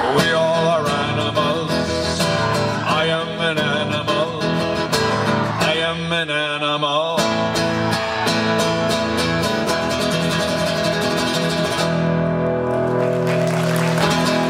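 Live acoustic guitar strumming with a voice singing a long, bending final line of a folk song. The guitar carries on with held chords through the last several seconds.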